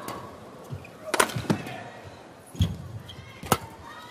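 Badminton rally: a few sharp, separate racket hits on the shuttlecock, with a dull thud of a footfall in the middle and brief squeaks of court shoes on the floor near the end.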